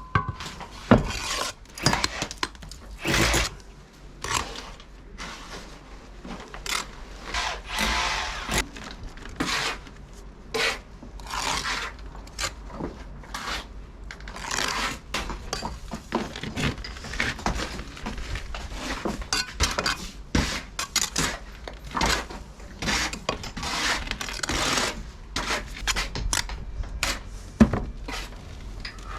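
Hand tools working brick and mortar during a brick replacement: irregular scrapes, with short knocks and taps in between.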